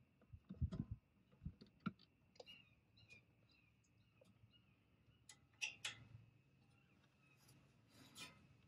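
Faint scattered clicks and light knocks of hand tools and parts being handled while bleeding a truck's brakes, with a couple of low thuds about half a second in and a short rustle near the end.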